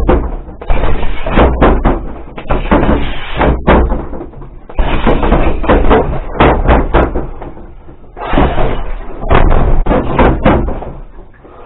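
Gloved punches slapping and thudding into a BOB XL free-standing rubber dummy, thrown in three fast flurries with short lulls between them.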